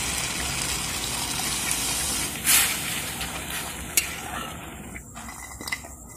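Water poured into hot fried masala in an iron kadhai, hissing and sizzling loudly, with a louder surge about two and a half seconds in. A sharp knock about four seconds in, then the sizzling dies down as the gravy settles to a simmer.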